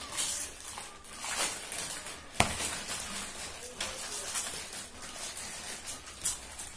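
Crinkling and rustling of Lay's potato chip packets being handled and dug into, with chips being crunched, as a run of irregular crackles. A single sharp snap about two and a half seconds in stands out as the loudest sound.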